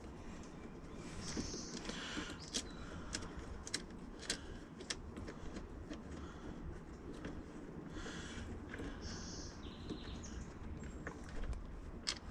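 Faint hand work on truck interior trim and its fasteners: scattered light clicks and small knocks, with a few short high squeaks, over a low hum.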